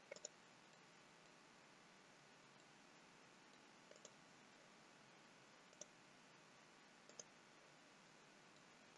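Faint computer mouse clicks over near-silent room tone: a quick double click at the start, another pair about four seconds in, a single click near six seconds, and a double click about seven seconds in.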